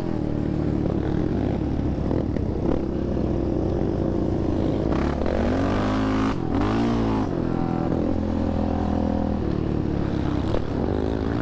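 Yamaha Raptor sport quad's single-cylinder four-stroke engine running under way, heard from on board. The revs rise and fall several times about halfway through as the throttle is worked.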